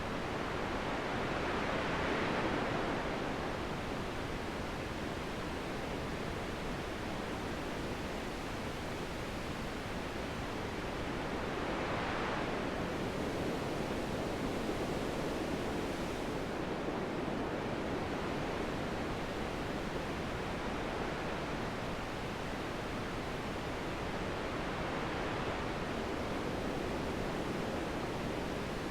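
Steady rushing wind, with gusts that swell louder and brighter about two seconds in and again around twelve seconds.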